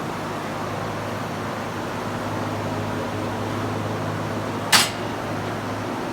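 Large electric barn fan running with a steady motor hum. About three-quarters of the way in, a single sharp clack cuts through, louder than the hum.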